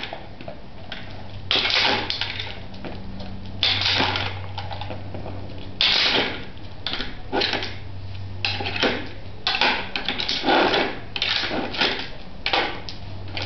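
Dog-operated gumball-machine treat dispenser being worked over and over: irregular bursts of clattering and rattling, some short clicks and some longer rattles, with the machine appearing low on kibble treats.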